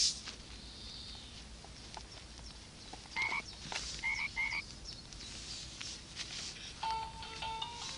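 Six-month-old baby gumming a plastic teether ring, with scattered clicks and wet mouth sounds, and a few short high squeaks about three and four seconds in. A simple beeping tune starts near the end.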